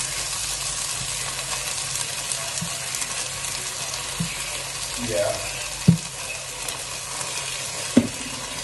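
Onion, garlic and carrot sizzling in a pan while a spatula stirs them, with two sharp knocks in the second half.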